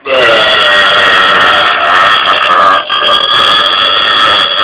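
A man belching very loudly in one long burp that lasts about five seconds, with a brief catch nearly three seconds in.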